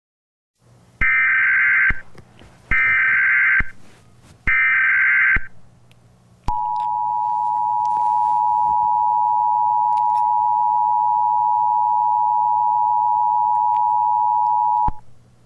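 Emergency Alert System tones: three short bursts of the SAME data header, each just under a second long and about a second apart, then the steady two-tone EAS attention signal held for about eight seconds before it cuts off.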